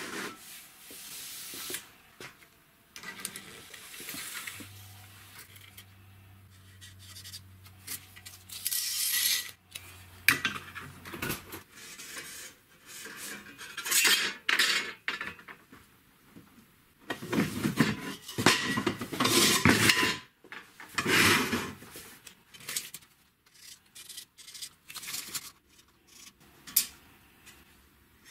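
Square steel tubes being handled on a plywood workbench: irregular metallic clanks, knocks and scrapes as the tubes are set down, shifted and slid against each other and the wood. The loudest run of scraping and knocks comes in the middle, with only light small taps near the end.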